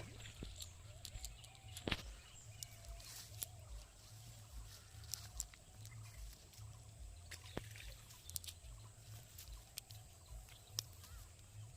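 Faint calls of domestic fowl, with scattered sharp clicks.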